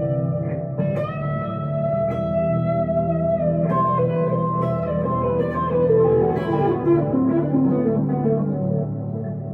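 Electric guitar, a 1962 Gibson Les Paul Custom through a Two-Rock Emerald Pro amplifier, playing a slow lead line of long held notes, with a run of notes stepping downward in the second half.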